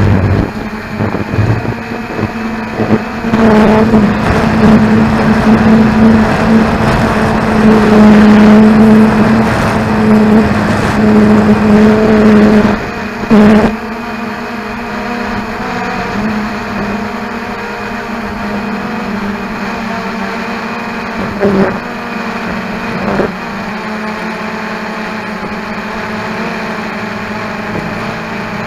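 Cheerson CX-20 quadcopter's brushless motors and propellers humming steadily, heard through the small camera mounted on it, mixed with rough wind noise. It is louder for about the first half, then settles quieter about 13 seconds in, with a couple of brief knocks later on.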